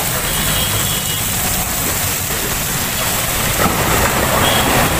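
Steady noise of road traffic in heavy rain: vehicle engines running and tyres on a wet road under the hiss of rain.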